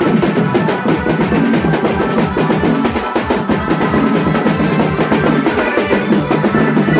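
Music led by fast, steady drumming, several beats a second, with a higher pitched instrument running over it.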